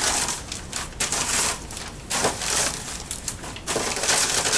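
Packaging rustling and crinkling in uneven bursts as a box is unpacked by hand.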